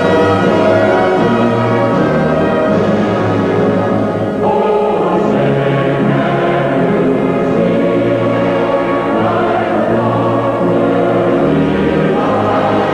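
A choir singing the national anthem in long held chords.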